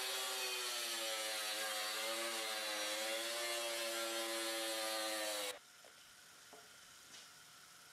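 Power saw cutting through a granite slab, its motor whine wavering a little in pitch as the blade bites. The sound cuts off abruptly about five and a half seconds in, leaving only a few faint ticks.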